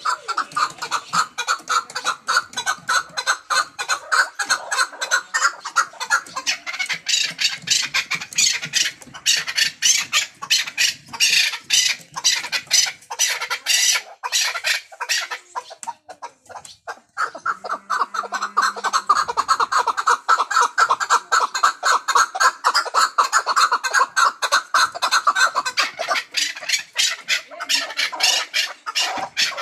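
Chukar partridge calling: a long run of rapid, repeated clucking notes, with a brief lull about halfway through before the calling picks up again.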